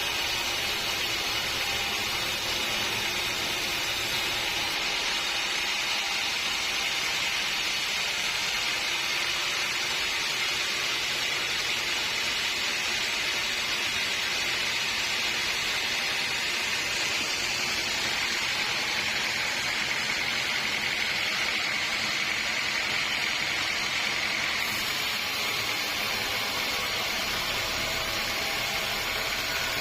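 Sawmill saw running steadily through a large log, a constant high-pitched noise with no break.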